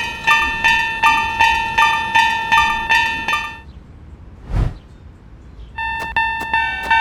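Japanese railroad crossing warning bell clanging, about two and a half strikes a second. It stops about halfway through, a short whoosh follows, and the bell starts again near the end at a slightly different pitch.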